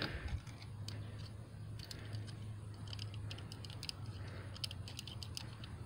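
Faint, scattered light clicks and ticks of hands handling the freshly stripped sensor wires at the connector, over a low steady hum.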